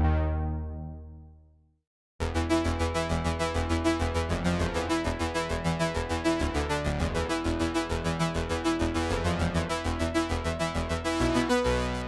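TAL-U-NO-LX software synthesizer, a Juno-60 emulation, playing arpeggiator presets. A held arpeggio chord dies away to silence in the first two seconds. Then a new preset starts: a fast, even arpeggio of about five notes a second over a sustained low bass note, which fades out at the end.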